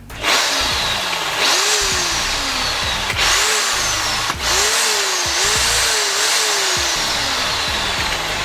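Parkside PSBM 750 B2 750-watt corded hammer drill running free with no load, its trigger squeezed and eased several times. The motor whine climbs quickly and then sinks slowly as the chuck coasts down, five or six times over.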